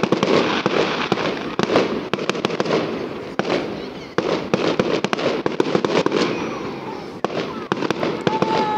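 Fireworks bursting overhead in a rapid, continuous series of sharp bangs and crackling pops. Near the end a steady, high whistling tone begins.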